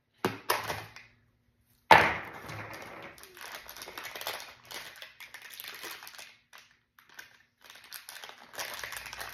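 Handling a plastic toy mystery egg: a few small clicks, then one sharp hard-plastic clack about two seconds in, followed by several seconds of crackly crinkling and rustling as a small wrapped toy is unwrapped by hand.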